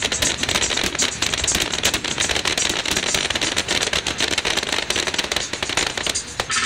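Fireworks from a starmine crackling: a dense run of rapid, sharp pops from bursting crackle stars, thinning out near the end.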